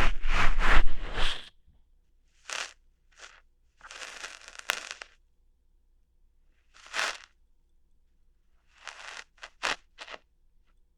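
Close-miked crunchy scratching and crackling, ASMR trigger sounds meant as ear hair being plucked. A dense stretch comes in the first second and a half, then single short scratches follow at uneven gaps.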